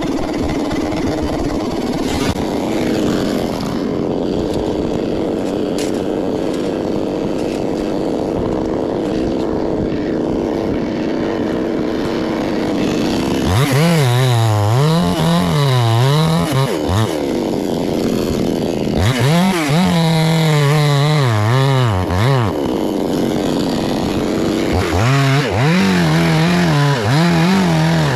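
Chainsaw engine running steadily, then revved up and down in three spells: about halfway through, again a few seconds later, and near the end. Its pitch rises and falls roughly every second.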